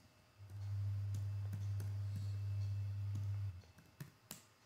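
Scattered clicks of a laptop's keys and touchpad, with a sharper click near the end. A steady low hum comes in about half a second in and stops about a second before the end.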